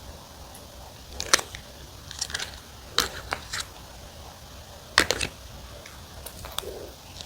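Biting and chewing a crusty wood-fired pizza crust: a few sharp crunches spaced about a second apart, the loudest about five seconds in.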